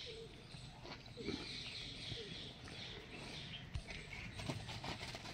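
Faint outdoor ambience beside a herd of resting zebu cattle: scattered small knocks and clicks over a steady high hiss.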